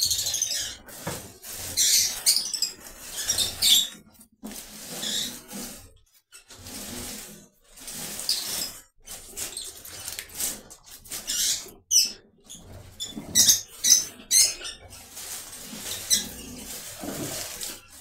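Green date palm fronds rustling and scraping in irregular bursts as they are handled and pushed into place as nesting material, with a few high chirps from African lovebirds.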